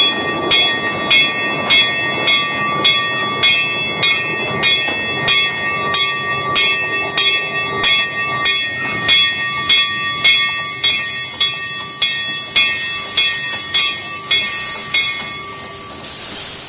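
Brass bell on a Crown two-foot-gauge steam locomotive ringing steadily, a little under two strokes a second, as the train rolls slowly along the track. The strokes weaken and die out near the end, while a steam hiss builds up over the last several seconds.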